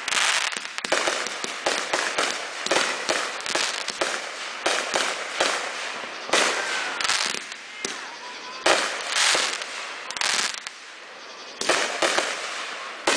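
Aerial consumer fireworks bursting overhead in quick, irregular succession, with sharp bangs and crackle. There is a short lull near the end before the bursts resume.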